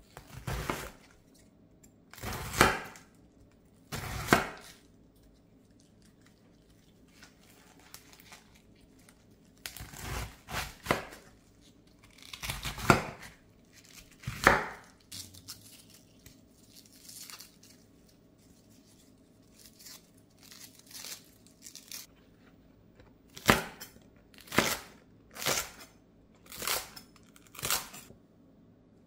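A kitchen knife slicing through raw cabbage onto a wooden cutting board: a handful of separate crisp cutting strokes, with the cabbage leaves rustling and tearing as the pieces are pulled apart. Near the end comes a steady run of cuts, about one a second, through green onion.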